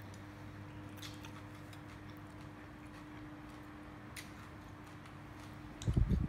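Steady low hum of room tone, with a few faint clicks of chopsticks and a metal spoon against a ceramic soup bowl, and a dull low thump near the end.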